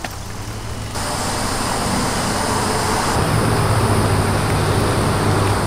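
Steady outdoor rushing noise with a low hum, jumping louder about a second in.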